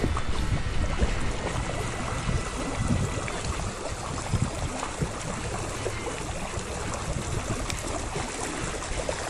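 Shallow river current rippling over a riffle, a steady rush and trickle of water, with a few small knocks about halfway through.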